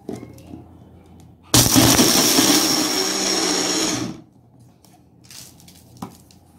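Electric mixer-grinder (mixie) running in one short burst of about two and a half seconds, grinding dry roasted peanuts with green chillies and tamarind for peanut chutney. The motor comes on suddenly about a second and a half in with a steady high whine, then winds down. Light clicks of the jar being handled come before it.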